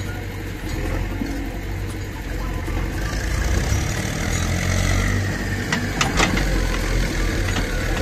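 JCB backhoe loader's diesel engine running steadily as the backhoe arm works, pulling harder and louder from about three seconds in. A few sharp knocks about six seconds in as the bucket works the soil.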